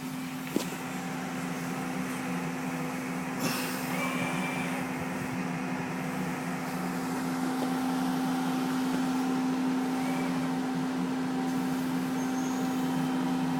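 CNC machine running with a steady mechanical hum that grows gradually louder, a sharp click about half a second in and a brief hiss about three and a half seconds in.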